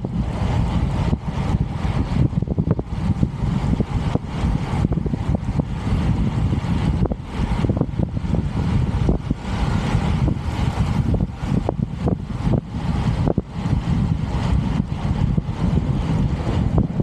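Wind buffeting the microphone of a camera carried on a road bike at speed: a dense low rush broken by frequent short gusty thumps.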